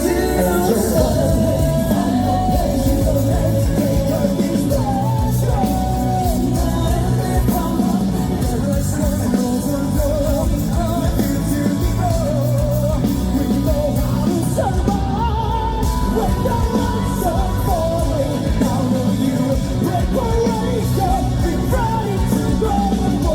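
Live rock band performance with singing and shouting over loud drums, bass and guitars.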